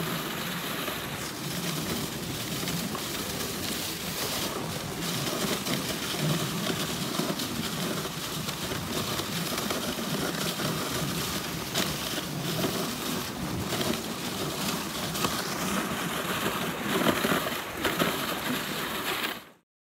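Dog sled running over a packed snow trail: the runners scrape and crunch steadily over the snow, with a few short knocks as the sled jolts. The sound cuts off abruptly near the end.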